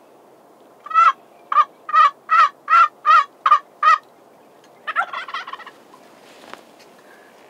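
Wild turkey calling: a run of about eight loud yelps, roughly three a second, then a single rapid rattling gobble about five seconds in.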